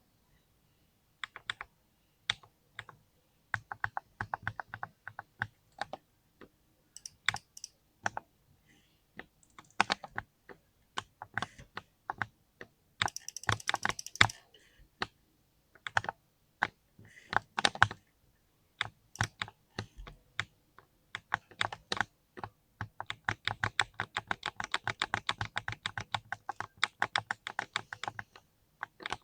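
Keyboard switches clacking under typing, in uneven bursts of quick keystrokes with short pauses, and a long fast run near the end. The switches are loud.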